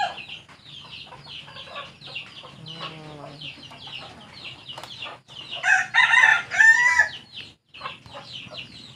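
A rooster crows once, about six seconds in, over a steady background of chickens clucking and chirping.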